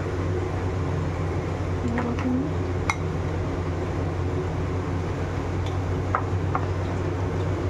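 A plastic spoon clinks and scrapes against ceramic bowls a few times as thick chutney is spooned from one bowl into another, over a steady background hum.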